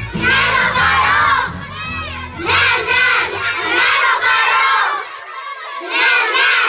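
A group of children shouting together in about four loud bursts of a second or so each. The song's backing music fades out a couple of seconds in.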